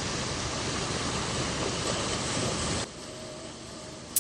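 Steady rush of breaking sea surf and wind noise, which drops suddenly about three seconds in to a quieter wash of waves.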